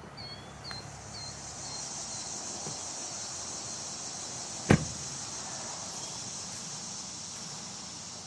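A car door slammed shut once, a single sharp bang about halfway through, as the man steps out of a Subaru Crosstrek. Behind it a steady high insect drone runs throughout, with a few short bird chirps near the start.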